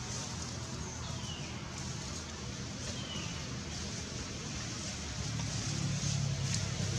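Steady outdoor background noise with a low rumble that grows louder about five seconds in. Two short, faint, high falling chirps sound about a second apart.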